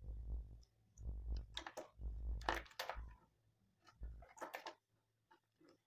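Handling noise on a desk: clicks, taps and rustling as multimeter test probes, a plastic mains plug and its cord are picked up and moved about, with dull low thumps. The clicks come in clusters, busiest about two seconds in and again briefly near four and a half seconds.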